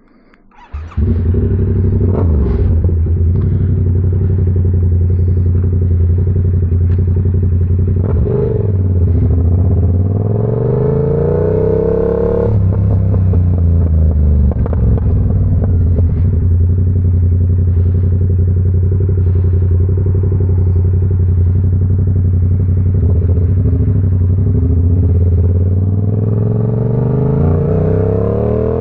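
Yamaha R7's 689 cc parallel-twin engine comes in suddenly about a second in and runs steadily. Around the middle it revs up as the bike accelerates, drops sharply, then settles into a steady run, and it rises again near the end.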